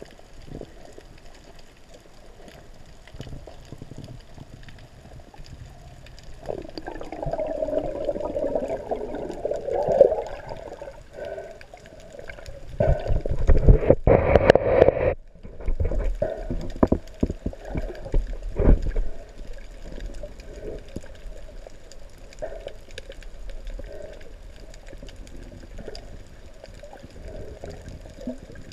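Water sloshing and gurgling around a camera held in the sea by a swimming snorkeller. There are louder rushes of water from about six to ten seconds in and again from about thirteen seconds, and the second one cuts off suddenly about two seconds later.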